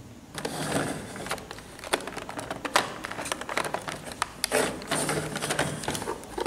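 Plastic toy kitchen pieces handled on a tabletop: a busy run of small clicks, knocks and crackling from the toy's hard plastic and the clear plastic packaging around its pots.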